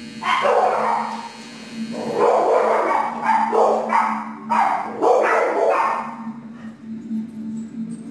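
A dog giving voice in about four loud outbursts over the first six seconds, then quieter; a steady low hum runs underneath.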